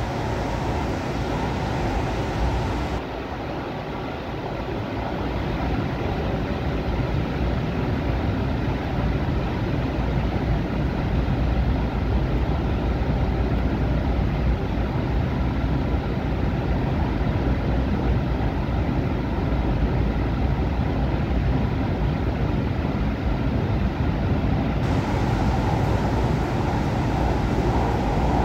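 Steady low rumble and running noise of a moving vehicle, heard from inside its cabin. The higher hiss dulls about three seconds in and comes back near the end.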